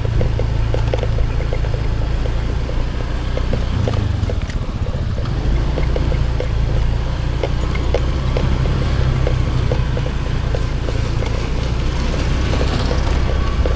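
Vehicle on the move: a steady low rumble with scattered clicks and rattles.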